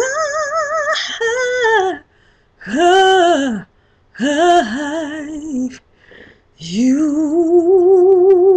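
A woman singing unaccompanied, drawing the word "life" out into a long wordless run of held notes with wide vibrato. Four phrases come with short breaths between them, and the last note slides up and is held near the end.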